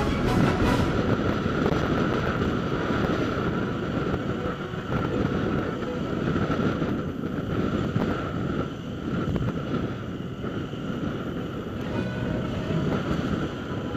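Single-cylinder dual-sport motorcycle engine running under way on rough dirt, with wind buffeting the on-board camera microphone.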